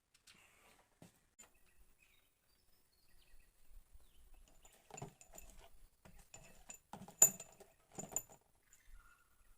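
Metal tools and parts clinking and knocking as they are handled, in a few separate sharp strikes; the loudest comes about seven seconds in.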